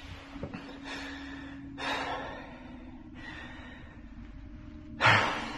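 A man breathing heavily through his nose and mouth, with a breathy exhale about two seconds in and a sharper, louder huff near the end, over a faint steady hum.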